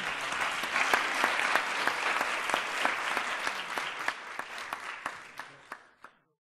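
Audience applauding with many hands clapping, thinning out after about four seconds and cutting off just before the end.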